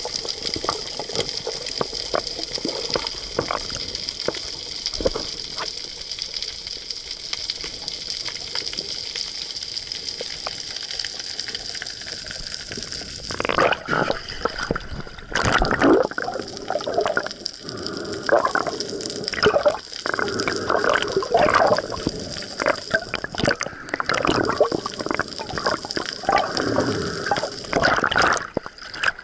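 Water heard through a camera held just under the sea's surface: a steady hiss with scattered faint clicks. About thirteen seconds in the camera breaks the surface, and choppy water splashes and sloshes loudly and irregularly over it.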